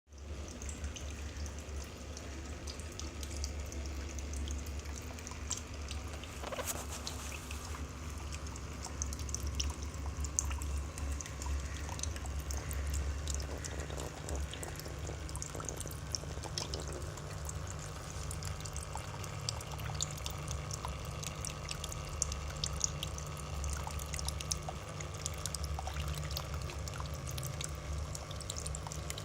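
Small handmade indoor water fountain running: water trickling and dripping steadily, with many small splashes, over a steady low hum.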